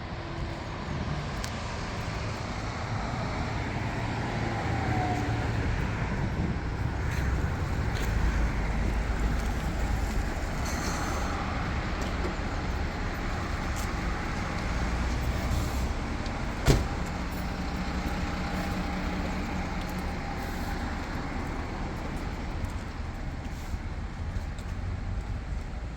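Town street ambience with road traffic: cars driving past as a steady low rumble that swells briefly about a third of the way through. A single sharp click stands out about two-thirds of the way through.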